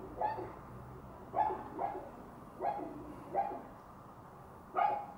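A dog barking behind a closed glass-panelled front door: six short barks, irregularly spaced.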